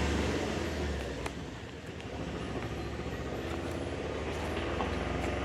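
Steady low mechanical hum, like a nearby engine running, under a wash of background noise, with a faint click about a second in and another near the end.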